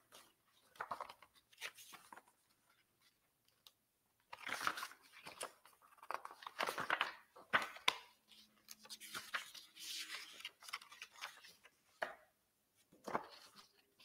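Faint, scattered handling noises at a desk: light clicks and short rustles, with longer rustling patches about four to five seconds in, around seven seconds, and near ten seconds.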